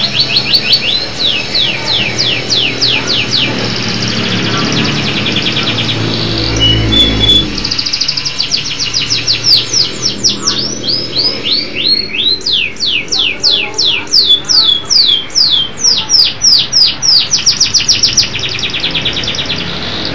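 Canary singing vigorously: a long song of fast trills, each made of rapidly repeated sweeping notes, with the song changing from one trill type to the next. A low rumble sits under the song in the first third.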